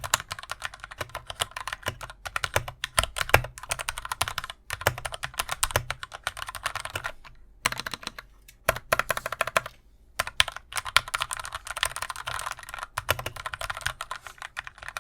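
Fast typing on an Akko 3061S mechanical keyboard with linear Gateron switches: a rapid run of key clicks with two brief pauses, about halfway through and again shortly after.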